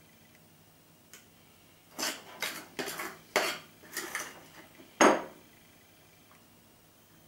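A metal spoon clinking and scraping against a glass mixing bowl while gathering muffin batter. There is a quick run of scrapes and knocks for about three seconds, ending in one louder clack.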